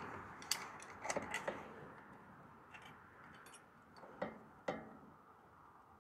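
Hand wrench working bolts tight on a compact tractor's air-box bracket: scattered light metallic clicks and clinks, with two sharper clicks a little past four seconds in.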